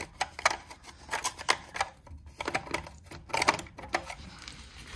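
Small brass fittings and caps clicking and rattling against each other and the plastic compartment walls as a hand sifts through a parts organizer, a quick irregular run of clicks.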